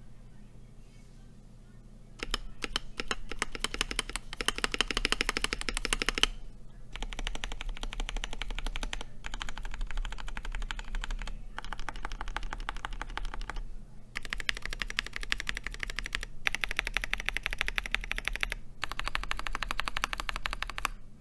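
Mechanical keyboard with modded Durock POM Sunflower tactile switches (KBD67 Lite) being typed on: fast, continuous keystroke clacks in runs of a few seconds with short pauses between them, starting about two seconds in.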